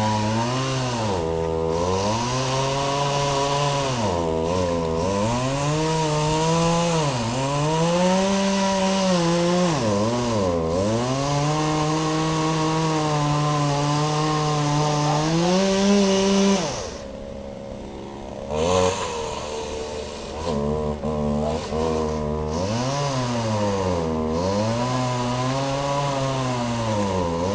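Chainsaw engine revving, its pitch dipping and climbing again every few seconds and held high for a stretch. About seventeen seconds in it falls away quieter for a moment, then picks up and revs again.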